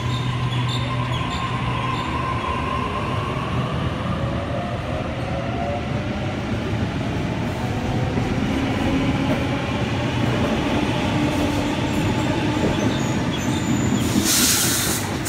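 Sydney Trains double-deck electric train moving along the platform: a steady rumble with motor whines gliding up and down in pitch, and a short loud hiss about a second before the end.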